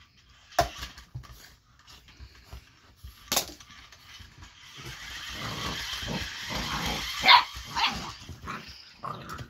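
Eight-week-old boxer puppy barking: short sharp barks about half a second in and just past three seconds, and a loud bark a little after seven seconds. A steady noise builds up and fades through the middle stretch.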